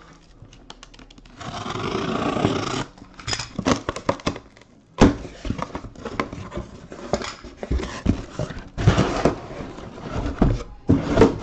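Cardboard shipping case being opened and handled: scraping and rustling of cardboard with many knocks, a sharp knock about five seconds in, then shrink-wrapped boxes slid out.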